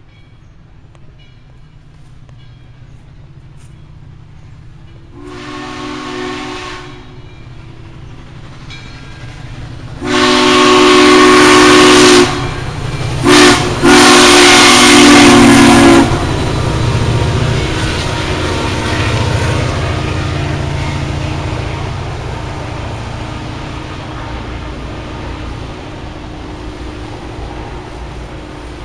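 Steam locomotive's chime whistle blowing four blasts, long, long, short, long, the grade-crossing signal, over the rumble of the approaching train. After the last blast the train runs past and its rumble slowly fades.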